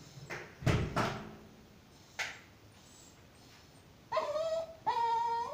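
A dog whining for chicken, begging for more after being told it is all gone. A few short dull sounds come in the first couple of seconds, then two drawn-out whines, each held at a steady high pitch, near the end.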